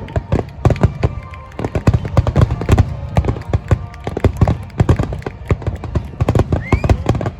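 Fireworks finale barrage: many aerial shells bursting in quick, overlapping succession, low booms mixed with sharp cracks, with a short rising whistle near the end.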